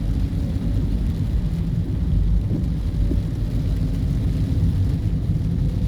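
Steady low rumble of a vehicle driving on the road: engine and tyre noise.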